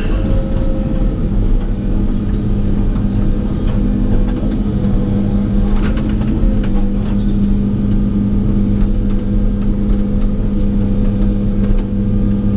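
Excavator's diesel engine running steadily under load with a constant hum, as the machine slides material over with its hydraulics; a few faint clicks about halfway through.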